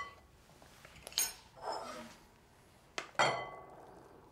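Stainless-steel saucepan and kitchen utensils clinking and knocking against each other and a glass mixing bowl while hot pudding is poured out of the pan. There is a ringing clink about a second in, a soft scrape, and a sharp ringing knock about three seconds in.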